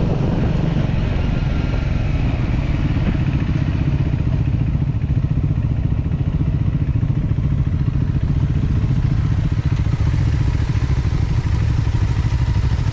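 Motorcycle engine running steadily, a low, even pulsing exhaust note.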